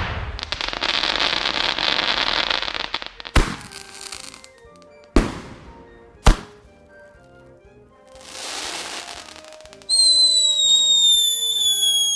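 Fireworks: a burst trailing into about three seconds of dense crackling, then three sharp bangs, a rushing swell, and near the end a shrill whistle that slowly falls in pitch.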